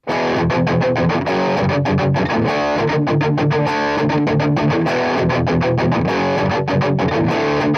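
Electric guitar played through a guitar amp, chords picked and strummed in a steady rhythm.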